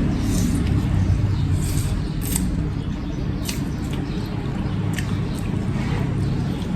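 Chopsticks clicking now and then against dishes, with small wet eating sounds, over a steady low hum.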